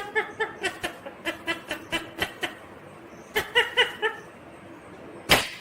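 Indian ringneck parrot chattering in fast runs of short, high-pitched syllables, about six a second, pausing and starting again, with a sharp click near the end.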